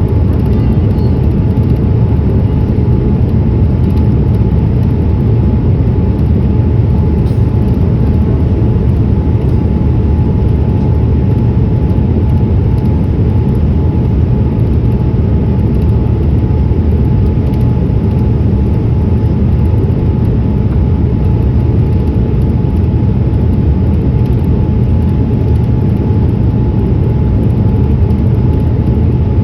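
Boeing 787-8 airliner's engine and airflow noise: a loud, steady low roar with a faint steady whine running through it.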